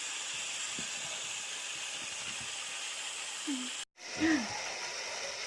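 Pork belly frying in hot oil in a wok, a steady sizzle. The sound cuts out briefly about four seconds in, with a short vocal sound on either side of the break.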